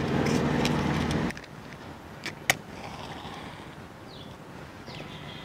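A steady low hum for about the first second that cuts off sharply. It is followed by a single sharp scratch-click about two and a half seconds in: a match being struck to light the kindling of a wood fire.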